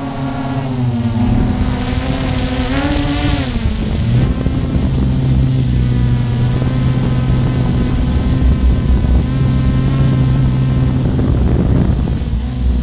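Quadcopter drone's electric motors and propellers humming close to the microphone. Their pitch wavers up and down in the first few seconds as the motors change speed, then holds steadier.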